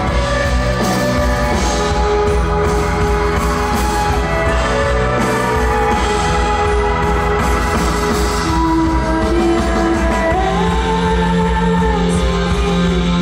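Live band playing a slow rock song with guitar, heard from the seats of a large hall. In the second half a singer's voice comes in, holding long notes that glide slowly up and down.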